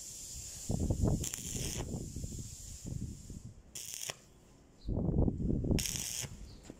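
Stick (arc) welder crackling as the electrode burns against a steel exhaust pipe, mending the pipe where it broke. It comes in two spells with a short break a little past the middle, when the arc goes out and is struck again.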